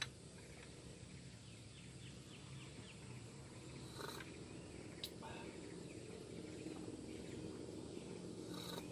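Quiet outdoor ambience: a steady faint low hum with faint high chirping calls in the first few seconds, and two light clicks about four and five seconds in.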